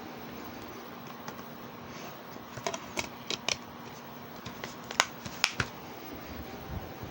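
Sharp clicks, one group of about four and then a second group of three, over a steady hiss with a faint hum.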